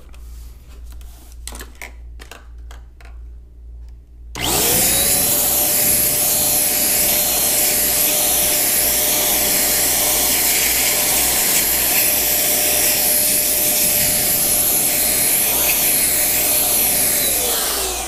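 A few light clicks and rattles, then about four seconds in a handheld electric blower spins up and runs steadily with rushing air and a steady motor tone, blowing dust out of a mechanical keyboard with its keycaps removed. It spins down near the end.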